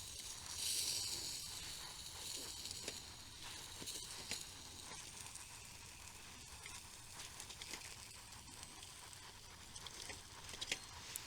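Spam slices sizzling softly on a grill over a small backpacking gas stove, a faint steady hiss with scattered small pops and crackles that come more often near the end.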